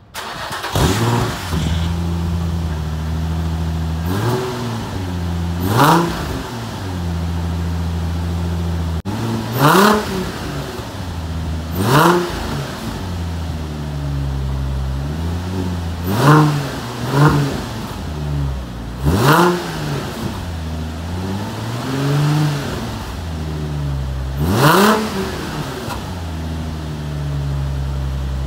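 Nissan 350Z's 3.5-litre V6 through a Circuit Werks single-exit catback exhaust with its silencer removed and test pipes in place of the catalytic converters. It catches right at the start, then idles loudly with about nine quick throttle blips, each rising and falling in pitch.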